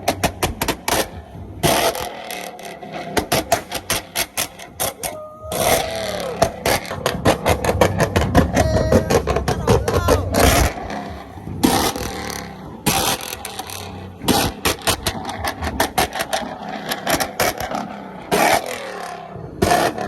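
Street car meet noise: vehicles running, with many sharp crackling pops and clicks throughout.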